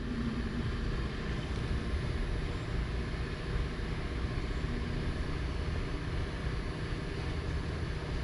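Steady outdoor background rumble and hiss, even throughout, with no distinct events.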